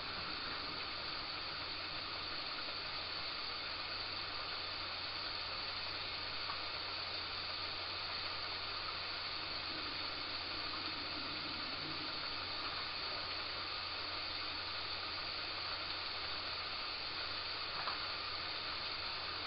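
Steady hiss of recording noise with a low, even hum beneath it, unchanging and with no distinct events.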